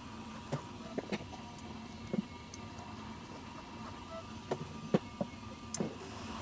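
Light, scattered clicks and taps, about eight spread unevenly, from handling a hot glue gun and setting small paper-straw pieces onto a cardboard cutout, over a faint steady hum.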